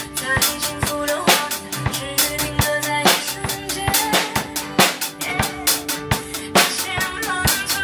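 Acoustic drum kit played in a steady rock beat, with kick drum, snare and cymbal crashes, over the song's instrumental backing music, which carries a wavering melodic line.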